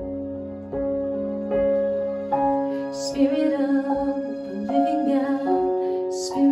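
A woman singing a slow worship song, accompanying herself with held piano chords on an electric keyboard.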